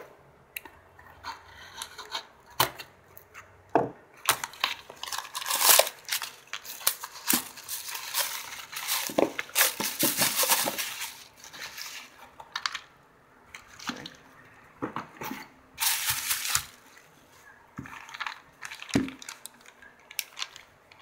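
Cardboard shipping box being opened and unpacked by hand: irregular rustling and crinkling of bubble wrap and plastic packaging, with scattered knocks of the box and contents on the desk.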